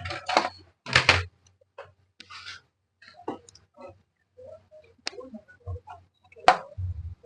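Small clicks, taps and rustling as wires and connectors are handled on a TV circuit board, with a sharp click about six and a half seconds in.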